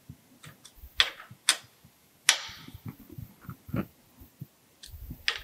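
Hand wrench tightening an SMW machine vise onto an aluminum block: scattered sharp metal clicks and taps with faint handling noise, one click about two seconds in ringing briefly.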